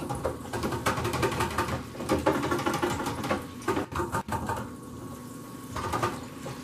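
Shrimp deep-frying in hot oil in an electric deep fryer, a dense, steady sizzling crackle with a few knocks as the fryer basket is handled.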